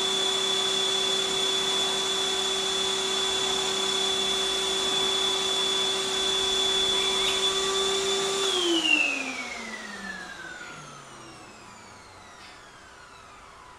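Canister vacuum cleaner running with a steady high motor whine. About eight and a half seconds in, it cuts off with a short knock, and the whine falls in pitch and fades as the motor spins down.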